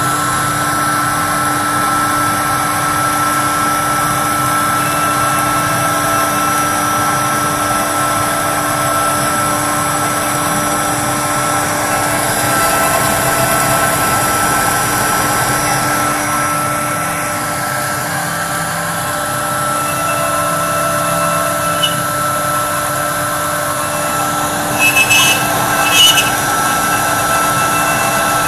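CNC router spindle running with a steady whine while its small carving bit cuts into wood, with a few short, sharper bursts near the end.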